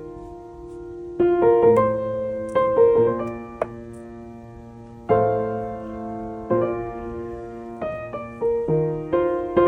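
Background piano music, slow notes and chords that strike and fade.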